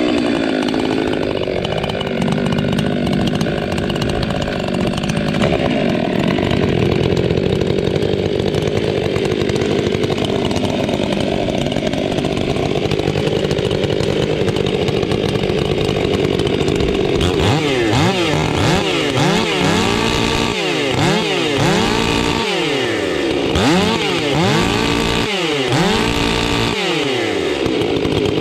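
Two Stihl chainsaws, an MS 500i and an MS 462 C, both fitted with free-flowing aftermarket mufflers (a Buckshot and a Barkbox), running together. They hold steady at high revs, then from about 17 seconds in they are revved up and down over and over, their rising and falling pitches overlapping.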